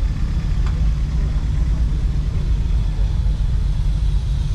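A steady low rumble with no clear pitch, at an even level throughout.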